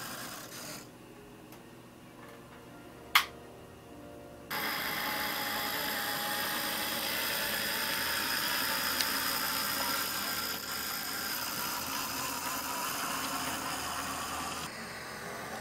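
Sn2½ model Shay geared locomotive, built from an HO Shay, running with a steady mechanical whir from its small electric motor and gearing. A single sharp click about three seconds in; the whir grows louder suddenly about four and a half seconds in.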